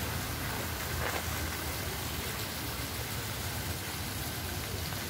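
Steady splashing and hiss of a jet fountain falling into its stone basin, over a constant low rumble.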